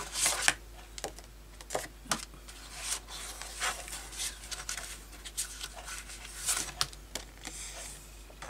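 Hands sorting through paper cards and packaging: irregular rustles and light taps of card and paper being moved and shuffled.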